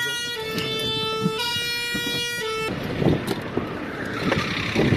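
Two-tone emergency siren of a fire-service vehicle, alternating between two pitches about once a second, which cuts off abruptly about two and a half seconds in. Then rough wind and movement noise with some low thumps.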